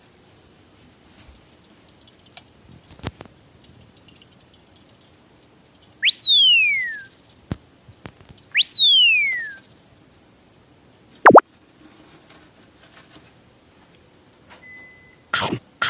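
Two added cartoon sound effects, synthetic falling-pitch 'pew' tones about a second long each, about six seconds in and again two and a half seconds later, over faint rustling. A quick, sharp downward swoop follows about eleven seconds in.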